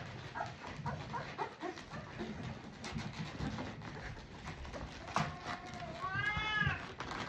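Newborn Cane Corso puppies squeaking and whimpering while nursing, with a longer whine about five seconds in and one that rises then falls near the end.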